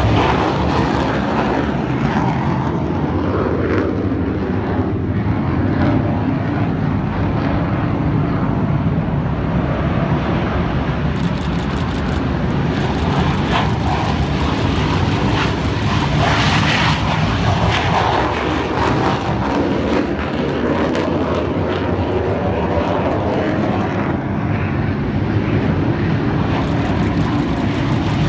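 Aircraft engine running on the apron: a loud, steady noise with faint tones that drift slowly up and down.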